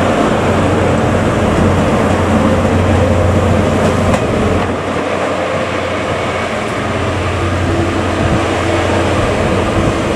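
Class 43 HST power car's diesel engine running loudly with a deep hum as it passes close by. About four seconds in the sound changes to another Class 43 HST running at a distance, a steady engine note holding in the second half.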